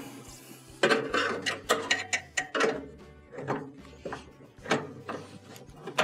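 A series of irregular metal clicks and scrapes as a flat-blade screwdriver pries a metal retaining clip off its hook on the LG dryer drive motor's mounting bracket.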